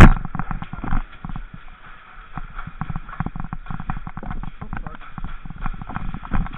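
Airsoft game sounds: irregular sharp clacks and taps of shots and BBs striking, several a second, opening with one loud crack.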